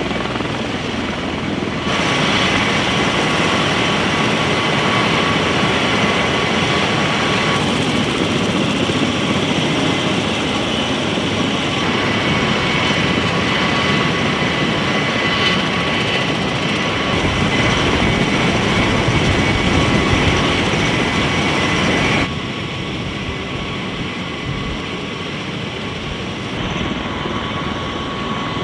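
MV-22 Osprey tiltrotors running on the ground: a steady turbine whine with a few high tones over the rush of the proprotors. The level changes abruptly several times.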